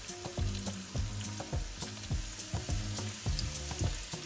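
Sliced onions, ginger and cumin sizzling in hot oil in a nonstick frying pan, the onions lightly browned. A silicone spatula stirs them, knocking and scraping against the pan about three times a second.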